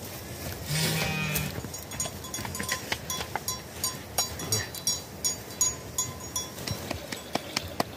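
Metal spoon scraping and clinking against an aluminium pot and dish as cooked rice is scooped out, with many light clicks and short ringing ticks. A short bleat sounds about a second in.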